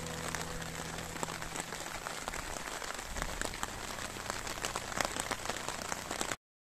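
Rain falling on the surface of a lake: a steady hiss with many sharp ticks of single drops, cutting off suddenly near the end.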